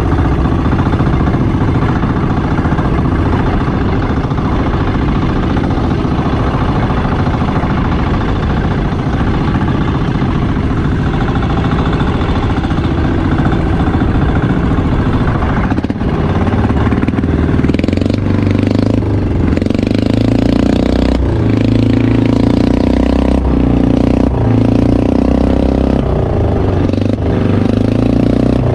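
Engine of a small motorized outrigger boat running under way, with the wash of its wake. About halfway through its note grows fuller and dips every couple of seconds.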